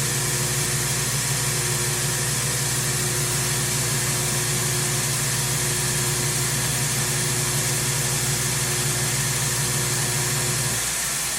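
Electric grinder running steadily, used to reprofile a damaged knife tip, with a constant hum and high hiss; the motor hum drops away near the end as it is switched off.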